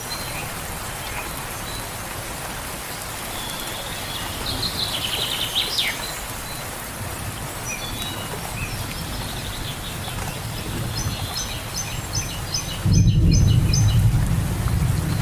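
Steady rain falling in a forest, with birds chirping over it: a twittering phrase with a falling note about five seconds in, and a quick series of short chirps near the end. A loud low rumble comes in suddenly near the end.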